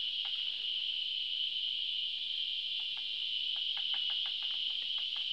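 Insects droning steadily at a high pitch, with faint scattered clicks.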